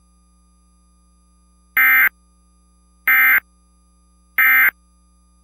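Emergency Alert System end-of-message tones: three identical short, harsh digital data bursts, each about a third of a second long and a little over a second apart. They signal the end of the alert.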